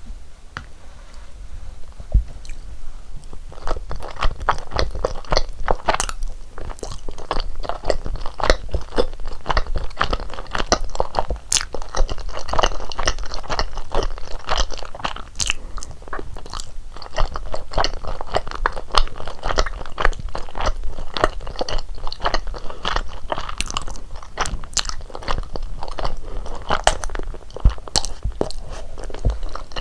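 Close-miked eating sounds of rosé tteokbokki: chewing, biting and wet mouth sounds, a dense run of quick sharp clicks and smacks. It is faint for the first few seconds and becomes steady and busier about three and a half seconds in.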